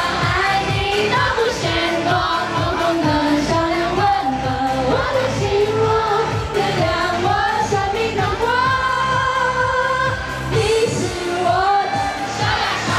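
Live pop song: a female singer's voice carrying the melody over band backing with a steady beat.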